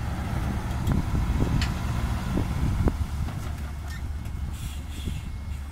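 Ten-wheel dump truck's diesel engine running steadily with a low rumble while its raised bed tips out a load of soil, with a few short knocks in the first three seconds.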